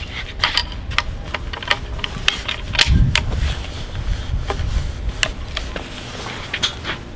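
Scattered metallic clicks and clacks from a Springfield Model 1873 trapdoor rifle being loaded and readied: a round going into the open breech, the trapdoor breechblock closed and the hammer cocked. A brief low rumble comes about three seconds in.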